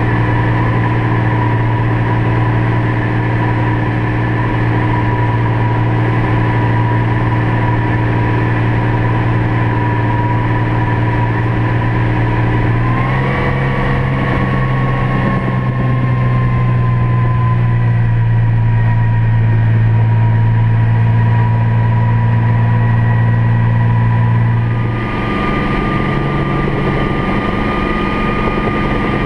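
Bell 47 G2 helicopter's Lycoming six-cylinder piston engine and main rotor running steadily, heard from the cockpit. The engine note steps up about halfway through, slowly sags, then steps up again a few seconds before the end as power is changed while the helicopter comes in low to land.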